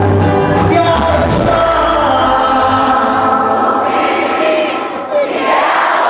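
Live reggae band with many voices singing along. The bass and drums drop out about a third of the way in, leaving held sung notes, and the crowd starts cheering near the end.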